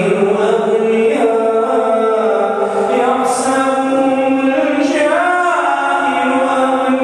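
A man reciting the Quran aloud in the melodic tajweed style, one voice drawing out long held notes that step from pitch to pitch, with a quick rising-and-falling vocal ornament about five seconds in.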